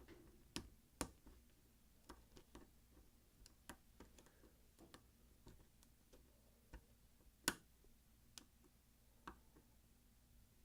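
Faint, irregular small clicks from a Peterson Gem lock pick working the wafers of an old Slaymaker Super wafer padlock during picking, with one louder click about seven and a half seconds in.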